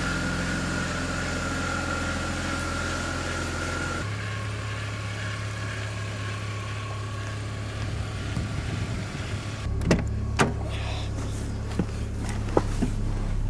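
BMW E46 wagon's straight-six engine idling steadily, with a few sharp clicks and knocks in the last few seconds.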